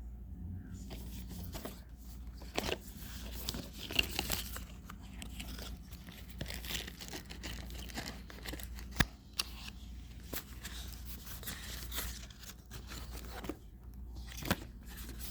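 Packaging being handled: continuous rustling, crinkling and tearing, broken by many sharp clicks, the loudest about four seconds in, nine seconds in and near the end.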